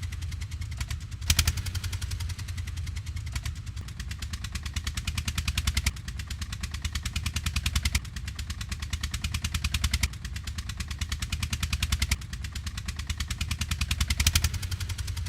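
Tractor engine running with a rapid, even chug and a deep low hum, briefly a little louder every couple of seconds.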